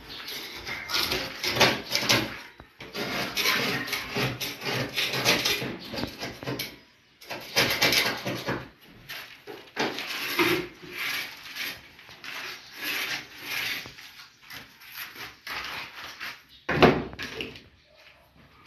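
Irregular rubbing and scraping sounds, on and off, with one sharp knock near the end.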